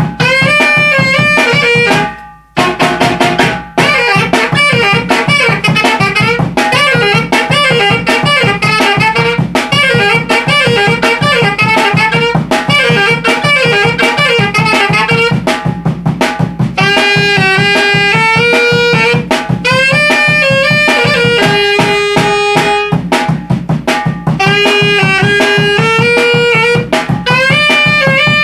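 Saxophone playing a lively melody over a steady beat on a large drum and a snare drum, with a short break in the playing about two seconds in.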